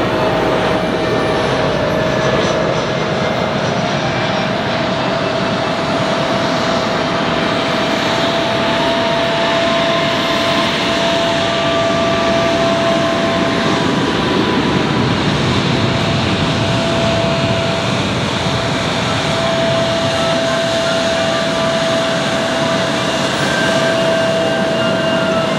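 Jet airliner engines running on the runway: a steady rushing noise with a constant high whine through it.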